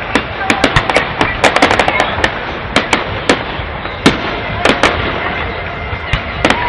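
Fireworks going off: a rapid, irregular string of sharp bangs and pops, several a second, over continuous crackling.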